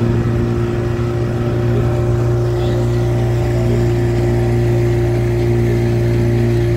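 Small motorboat's engine running steadily under way: a constant low drone that holds one pitch.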